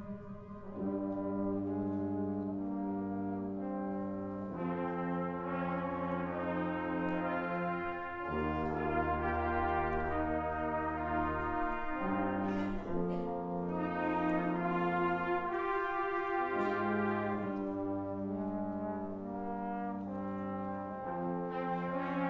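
A concert band playing live, brass to the fore: held chords that change every few seconds, with a deep low note sounding underneath from about eight seconds in to about twelve.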